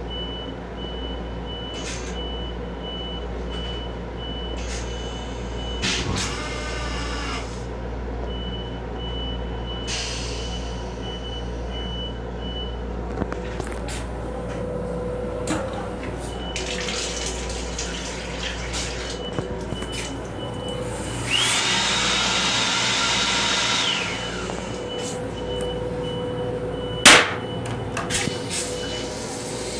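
M7 railcar's running rumble heard inside its restroom, steady, with a thin high tone that comes and goes. A rushing hiss lasts about two seconds two-thirds of the way through, and a single sharp, loud knock comes near the end.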